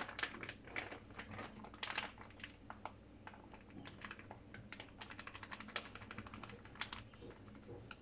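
Plastic flour bag crinkling and crackling in the hands as flour is shaken out of it into a stainless steel bowl, in irregular runs of quick small crackles.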